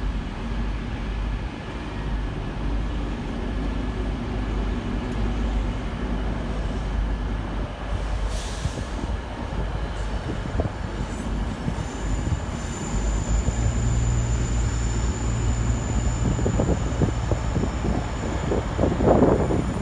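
High Speed Train with Class 43 diesel power cars moving slowly through the station: a steady low diesel drone that grows louder in the second half, joined about halfway through by a thin high wheel squeal.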